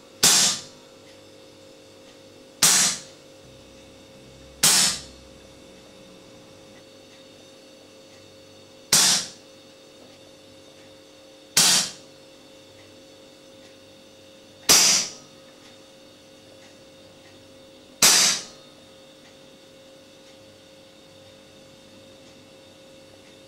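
An air rifle fired seven times at uneven intervals through aluminium silencers, each shot a short sharp crack that fades within about half a second.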